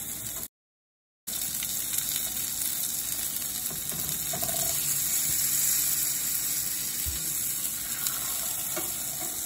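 Chicken breast sizzling as it sears in hot olive oil in a stainless steel frying pan: a steady, even hiss. The sound drops out completely for under a second about half a second in.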